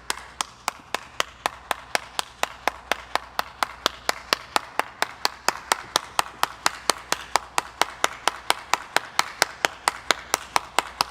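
One person clapping steadily at about four to five claps a second, a round of applause.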